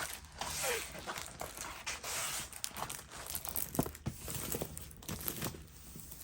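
Crinkling and rustling as a diamond painting kit's canvas and its packaging are handled, with a few short light clicks.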